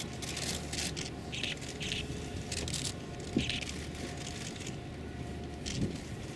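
Ambience of a large, hushed outdoor crowd: a steady low rumble with scattered short rustles, shuffles and clicks.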